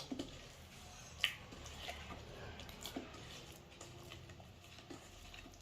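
Faint, scattered clicks and soft wet squishes of a spoon stirring a thick masala batter in a bowl, the sharpest click about a second in.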